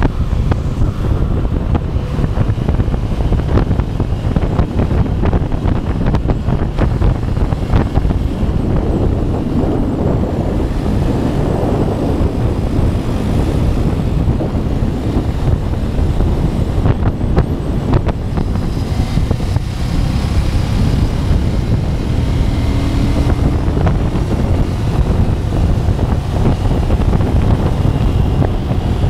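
Heavy wind buffeting on the microphone at road speed, with the Ducati Scrambler's engine running steadily underneath.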